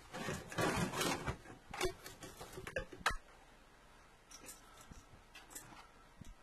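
Small metal lens parts being handled and worked by hand: a second or so of scraping and rustling, then a few sharp clicks and lighter ticks.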